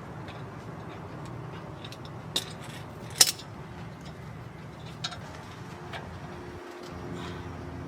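A few sharp metallic clinks and clicks of hand tools and brake parts being handled, the loudest about three seconds in, over a steady low hum.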